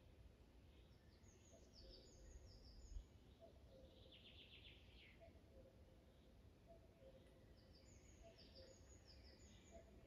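Faint woodland birdsong over a low rumble. A phrase of short high notes comes twice, near the start and near the end, with a fast trill about four seconds in. There is a brief low bump about three seconds in.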